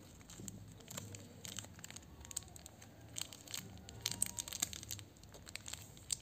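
Plastic wrapper of a Chocolatos wafer stick crinkling and crackling in the hands, in quick irregular crackles.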